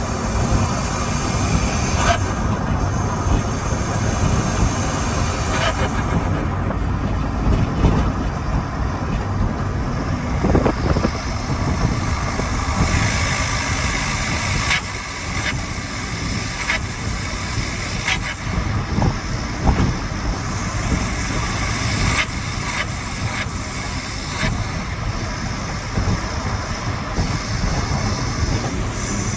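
Skoda Octavia vRS 2.0 TDI being driven: steady engine and road noise with a short burst of turbo flutter (compressor surge) every few seconds, the dose made loud by an open pod filter in place of the air box.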